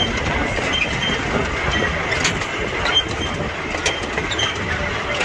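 Miniature ride-on train rolling along its track, heard from on board: steady running noise with scattered clicks from the wheels and rails.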